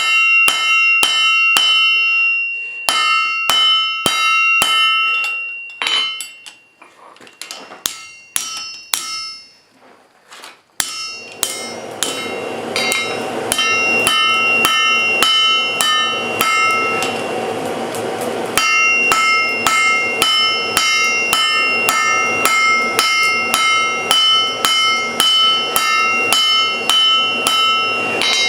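Hand hammer striking hot steel on an anvil, about three blows a second, each with a bright metallic ring. The blows thin out and fall quiet for a few seconds in the middle. From about eleven seconds in, a steady rushing noise runs under the continued hammering.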